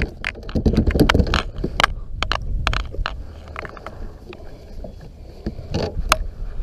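Clicks, knocks and scrapes of gear handled on a plastic fishing kayak, thick in the first two seconds and again about six seconds in, over a low rumble.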